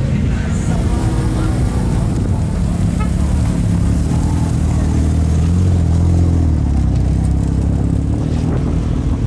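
Low-speed drive-by of show cars. An Infiniti G37 convertible rolls past at the start, then a Mazda RX-7 FD's rotary engine runs with a steady low drone as it pulls slowly away. The drone swells briefly around the middle.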